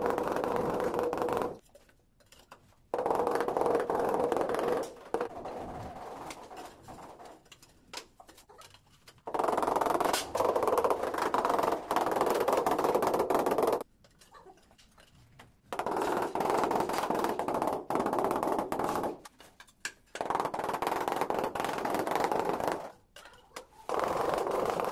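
Rubber mallet tapping large porcelain floor tiles down into a wet mortar bed to seat and level them: rapid runs of dull taps lasting two to four seconds each, broken by short pauses, about six runs in all.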